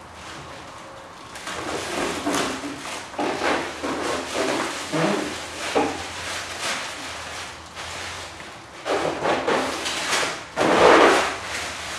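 Blue protective plastic film being peeled off a clear golf cart windshield and bunched up by hand: crackling, rustling plastic in bursts, loudest near the end.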